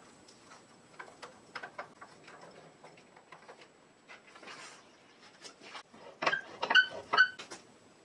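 A small screwdriver turning a screw down into the metal base of a Handy Junior button press: light scrapes and clicks of the tip working in the screw slot. Near the end come a few louder, sharper metallic clinks with a short ringing tone.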